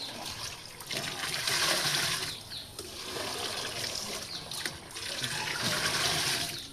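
Water poured from a jug into a large pot of rice, in two pours: one about a second in and another near the end.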